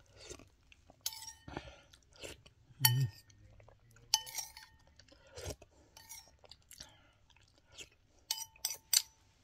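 Metal spoon clinking and scraping against a ceramic bowl, several sharp ringing clinks with three in quick succession near the end, between sounds of chewing and slurping as the last of a bowl of iced dessert is eaten.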